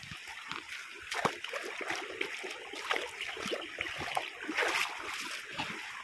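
A shallow rocky stream trickling, with irregular rustling and crunching of footsteps pushing through grass and brush close by.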